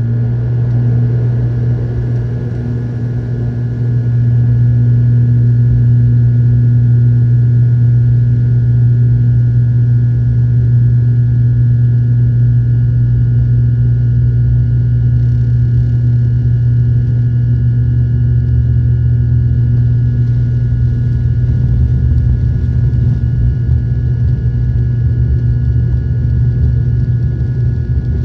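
ATR turboprop's engine and propeller heard from inside the cabin during the takeoff roll: a deep steady propeller drone with a high turbine whine above it. The sound grows louder about four seconds in as the engines come up to takeoff power, then holds.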